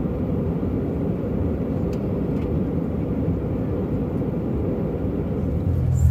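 Steady low rumble of an airliner in flight, heard inside the cabin. Near the end a deeper, louder drone takes over.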